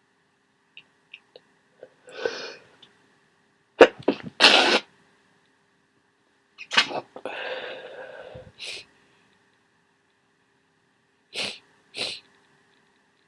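A person with a head cold sneezing repeatedly, the sneezes wet and congested. The loudest sneeze comes about four seconds in, another follows near seven seconds, and there are shorter breathy sounds before and after.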